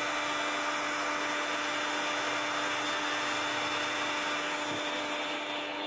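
Dayi heat gun running steadily: its small 365 motor and fan blowing a constant rush of air with a steady hum. The heating element is not working, so the air coming out is cold.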